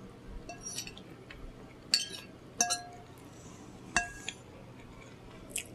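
Cutlery clinking against a dish three times, each strike leaving a short ring, with a few fainter ticks between.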